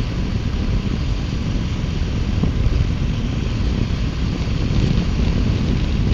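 Heavy wind rush buffeting the microphone of a motorcycle at cruising speed, over the steady running of a 2018 Triumph Bonneville T120's 1200 cc parallel-twin engine.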